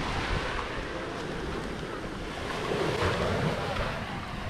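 Sea waves washing onto a small-pebble beach, with wind noise on the microphone. The wash swells a little about three seconds in.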